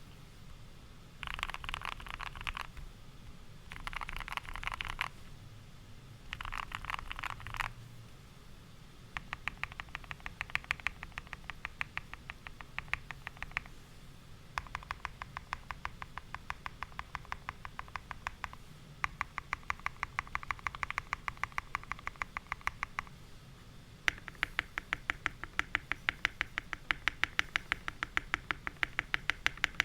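Typing on a Keychron Q1 mechanical keyboard fitted with lubed and filmed Gateron Milky Yellow linear switches. Three short flurries of fast keystrokes, then long runs of steady, evenly spaced key presses, several a second, with brief pauses between runs.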